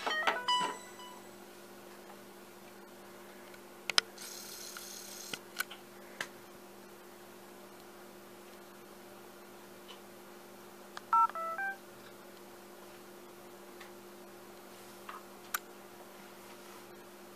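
Mobile phone beeps: a few short electronic tones at the start and a quick run of key beeps about eleven seconds in, with scattered clicks and a faint steady electrical hum.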